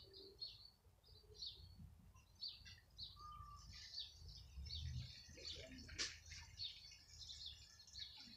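Birds chirping faintly, many short high chirps scattered throughout, over a low rumble. A single sharp click about six seconds in.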